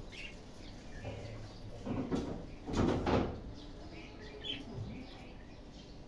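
Pet budgerigars in a wire cage giving short, soft chirps. About two seconds in there is a louder rustle lasting about a second.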